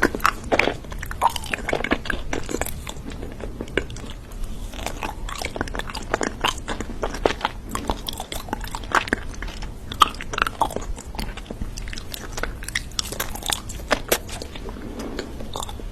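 A person chewing and biting into crunchy food, a continuous run of irregular, crisp crackles several times a second.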